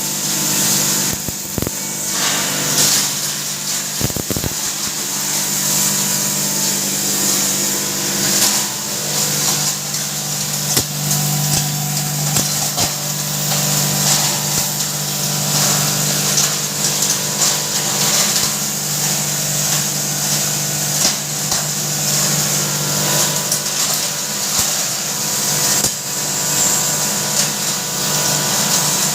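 Turmeric pulverizer, an electric hammer-mill spice grinder, running steadily: an even, loud hum with a high hiss over it and a few short clicks scattered through.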